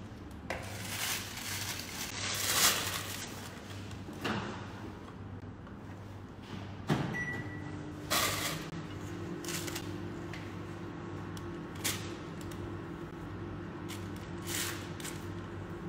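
Kitchen handling sounds while filling a piping bag with cake batter: scattered knocks, taps and scrapes as a plastic piping bag is set in its stand and a silicone spatula scrapes batter from a stainless steel bowl, over a steady low hum.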